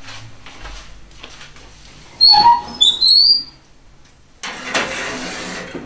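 Gas oven door opened, with a few loud, short, high squeaks, some of them rising, from its hinge. About a second later comes a rough scraping noise as a metal cake pan is slid onto the oven rack.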